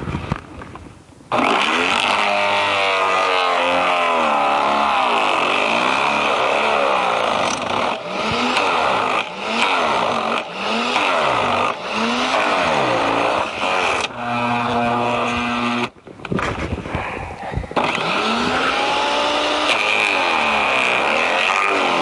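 Garden branch shredder running loud, its motor pitch repeatedly sagging and recovering as branches are fed in and chewed up. It comes in loud just over a second in and briefly drops out near the sixteen-second mark.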